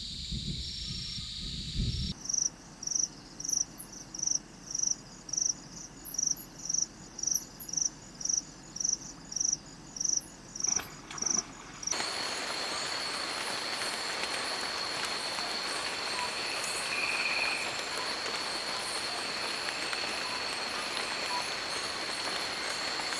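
Insects in wild nature recordings: a few seconds of low throbbing, then short high chirps at about three every two seconds, then a steady drone with a constant high whine.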